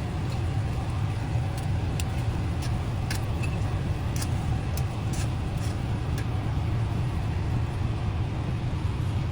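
A steady low rumble, like a running vehicle or machine, with scattered light clicks and taps over it, most of them in the first half.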